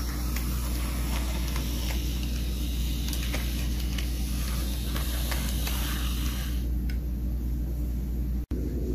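OO gauge Dapol Terrier model tank locomotive running along a test track, its electric motor giving a steady hum, with a few faint clicks from the wheels on the rails.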